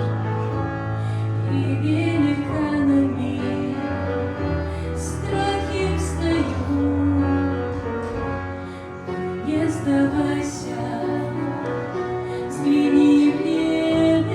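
Slow, tender song with a woman singing over instrumental accompaniment, with sustained chords and a steady bass line.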